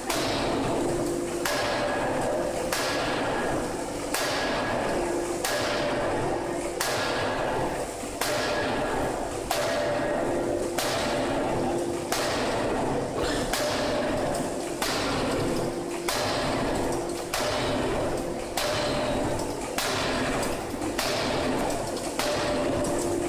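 Fully hydraulic open-die forging hammer striking hot steel in a steady rhythm, about one blow every 1.3 seconds, some seventeen blows in all. Each blow is a sharp metallic impact that rings out briefly.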